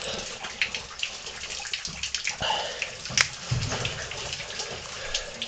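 Water splashing and trickling in a cave passage, with scattered knocks and scrapes; one sharp knock about three seconds in, followed by a low thud.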